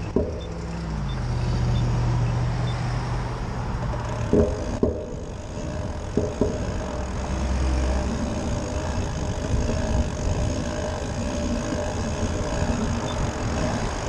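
Road traffic driving past: car and SUV engines and tyres on asphalt. One engine note drops in pitch about a second in, and a couple of short knocks come near the middle.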